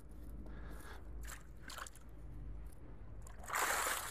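Water streaming and splashing off a mesh keepnet as it is hauled up out of the river. This starts suddenly and loud about three and a half seconds in, after a few faint splashes.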